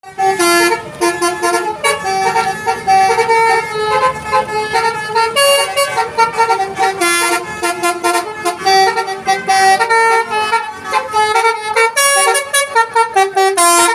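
Indonesian tour bus's 'telolet' multi-tone horn playing a rapid tune: several horn notes sounding together and switching pitch every fraction of a second, loud throughout.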